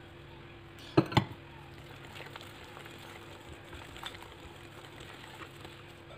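Wire whisk stirring thick creamed butter-and-sugar batter in a glass mixing bowl, a soft scraping with light ticks of the wires against the glass. About a second in, two sharp clinks of glass close together.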